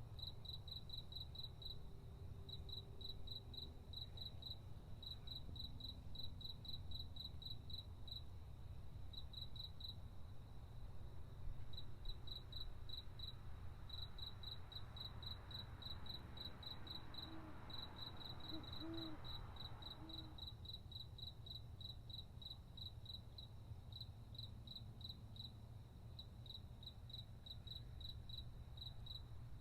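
Outdoor night ambience of crickets chirping in quick, high, steady pulses with short pauses, over a constant low rumble. About halfway through, a soft rush of noise swells and fades, with a few faint low calls.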